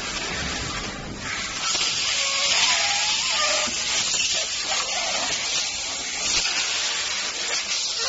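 Steady machinery hiss, growing louder about a second and a half in.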